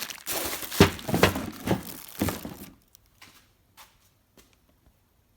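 Packaging rustling and crinkling as rebuild-kit parts are handled, with several knocks as things are set down, the loudest about a second in; after about three seconds only a few faint clicks.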